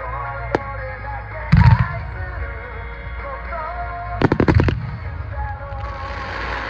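Aerial fireworks bursting while music plays: a heavy bang about one and a half seconds in, a rapid cluster of bangs about four seconds in, then a crackling hiss near the end.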